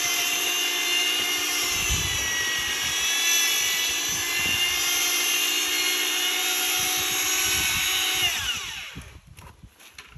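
Handheld electric drill with a paddle mixer running steadily at speed, stirring a cement mix in a plastic bucket. A little past eight seconds it is switched off and its whine falls away as it spins down, leaving a few light knocks.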